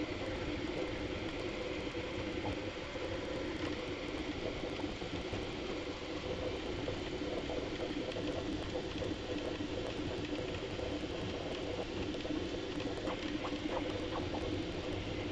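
Bambu Lab A1 3D printer running a print, its stepper motors and moving print head making a steady, fast chattering whir, sped up tenfold.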